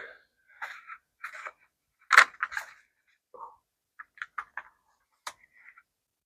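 Packaging being handled: a string of short rustles and scrapes, then a quick run of light clicks and one sharper click.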